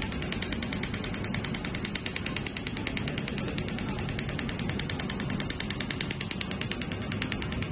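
Carbon-peel laser firing a rapid, evenly spaced train of sharp snapping clicks as the handpiece passes over carbon-coated facial skin, over a low steady machine hum. Each snap is a laser pulse bursting the carbon layer on the skin.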